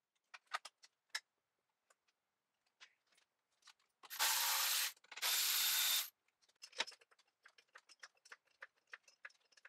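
Hand-held cordless ratchet run in two bursts of just under a second each, loosening fasteners during an engine teardown, amid scattered light clicks and taps of tools on metal.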